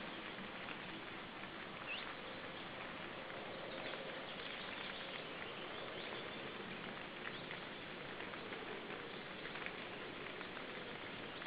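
Forest ambience at the nest: a steady hiss with light patter and scattered faint ticks, and a few brief high chirps, one about two seconds in.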